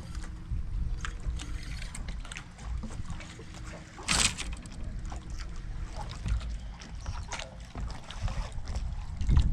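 Knocks and clatter of handling aboard a fishing boat over a low rumble, with one louder splash-like rush about four seconds in as the hooked bass is fought near the dock.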